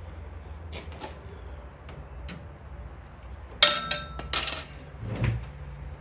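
A tool prying at plastic grille trim: two sharp clattering clicks with a brief ring a little past halfway, then a duller knock.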